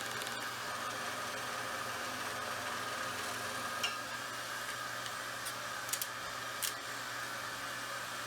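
Steady mechanical whir, like a motor or fan running, with a few light clicks about four, six and six and a half seconds in.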